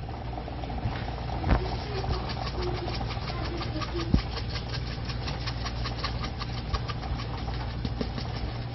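Mongolian beef in its thick sauce crackling and popping in a hot pan on the stove, a quick steady run of small ticks over a low steady hum, with a couple of light knocks early on.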